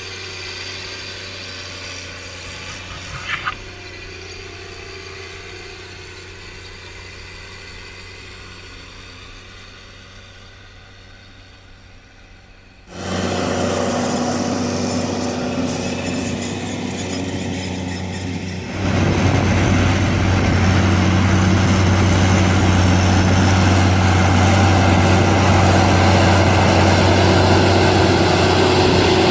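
Caterpillar Challenger MT765 tracked tractor's Cat C9 inline-six turbodiesel running steadily at work, at first distant and fading, then abruptly much louder about 13 seconds in and louder again about 19 seconds in.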